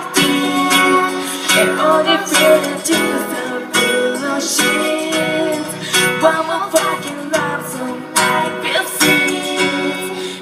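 Live pop song: acoustic guitar strummed steadily, with singing.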